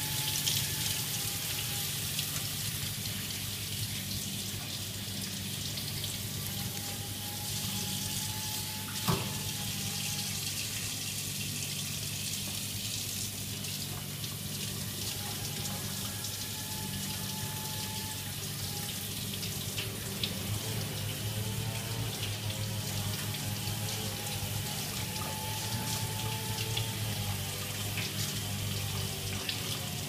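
Tap water running steadily into a stainless-steel sink as fresh sea fish are rinsed under the stream by hand, with one sharp knock about nine seconds in.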